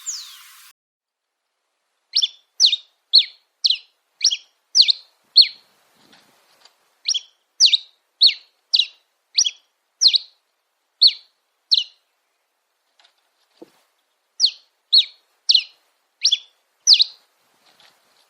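A bird calling: a series of short, sharp, high chirps, each sweeping down, about two a second, in three bouts with short pauses between them.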